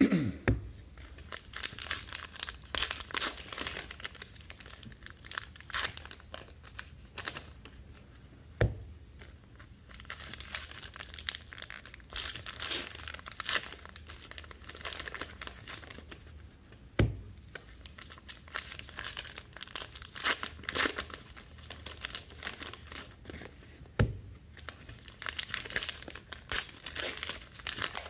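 Plastic foil wrappers of 2019 Topps Allen & Ginter baseball card packs crinkling and tearing in repeated spells as pack after pack is ripped open and the cards handled. Three sharp knocks stand out, spread through the stretch.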